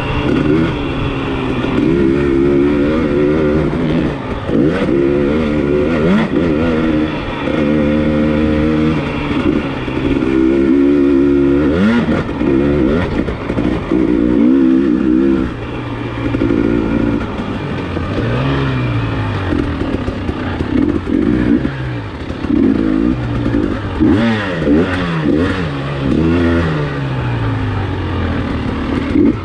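KTM EXC enduro motorcycle engine revving hard and easing off over and over as the bike is ridden along a dirt track, its pitch climbing and dropping back through gear changes and throttle work.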